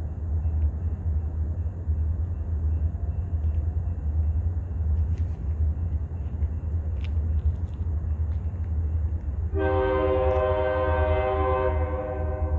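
Wheeling & Lake Erie locomotive 291's air horn sounding one long blast of several notes together, lasting about two and a half seconds near the end, over the steady low rumble of the train.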